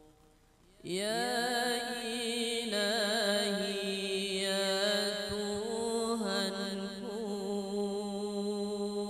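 Solo male voice chanting an Arabic qasidah unaccompanied: after a brief pause, about a second in, he begins one long drawn-out sung line with wavering, ornamented turns in pitch.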